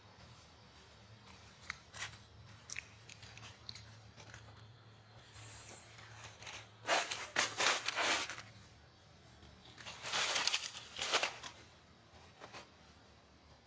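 A few scattered light clicks, then two short spells of crunching, the first about seven seconds in and the second about ten seconds in.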